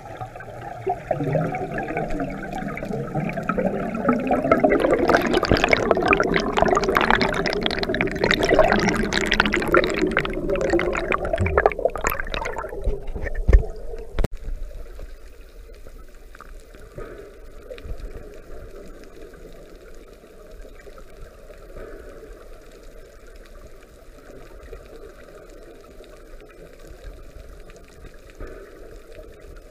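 Scuba divers' exhaled regulator bubbles gurgling and rushing underwater close to the camera, loud for the first dozen seconds, with a single thump about halfway through. After that the sound cuts to a quieter, steady underwater hiss with faint bubbling.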